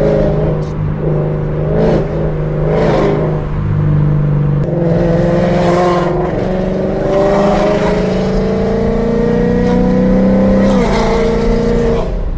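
Ford Mustang engine revving in a few short surges, then one long, slow climb in pitch lasting several seconds. About eleven seconds in, the pitch drops suddenly and holds steady.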